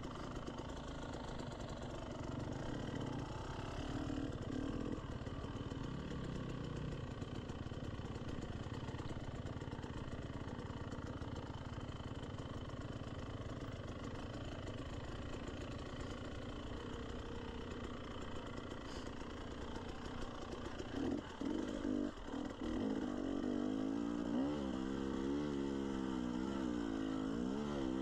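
Dirt bike engine running at low revs on slow single-track. From about 21 s it gets louder and revs up and down several times as it pulls up a steep climb.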